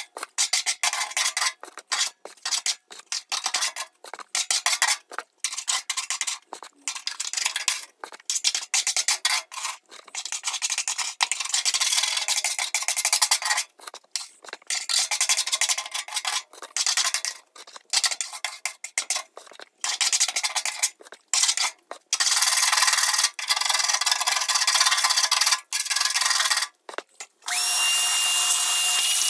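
Wire brush scrubbing rust and caked-on grime off the rusty metal floor of a gas grill's firebox, in quick repeated strokes with short breaks between them. Near the end a steady, unbroken scrubbing noise with a thin high tone in it sets in.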